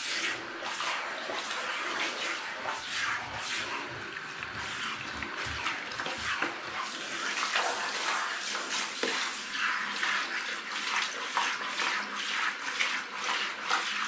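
Handheld shower head with a brush attachment spraying water over a cat's wet fur, with water splashing onto a plastic floor mat: a continuous, uneven hiss of running water.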